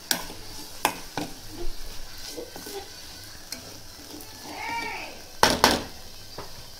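A metal slotted spoon stirring and scraping banana-flower stir-fry around a kadai over a faint sizzle, with scattered clicks and scrapes. About five and a half seconds in come two loud, sharp knocks close together.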